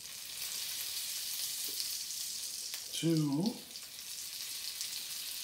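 Butter and canola oil sizzling steadily in a hot cast-iron skillet as the butter melts, the fat heating for a roux.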